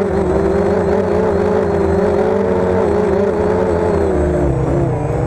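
Homemade quadcopter's electric motors and propellers humming, the pitch wavering constantly as the speeds are adjusted, and dipping slightly near the end. Gusty wind rumbles on the onboard camera's microphone underneath.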